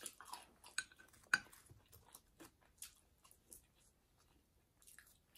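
Faint, scattered clicks and clinks of a metal fork against a plate as food is picked up, the loudest just over a second in.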